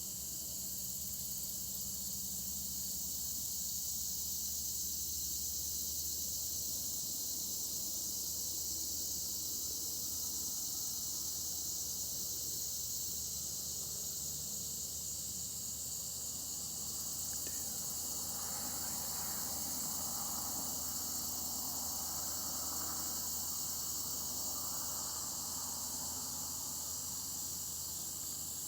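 Steady, high-pitched chorus of crickets and other insects trilling without a break. A fainter, irregular sound at a lower pitch comes and goes during the second half.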